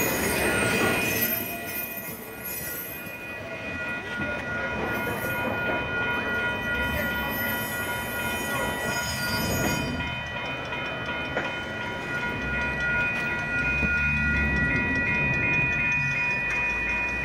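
A passenger train rolling slowly past on street-level track, its steel wheels giving a steady high squeal on the rails over a low rumble.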